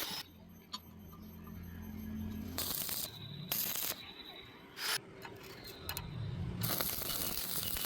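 Electric arc welding: a low steady hum broken by a few short bursts of arc noise and clicks, then a steady crackling sizzle of the arc from about seven seconds in.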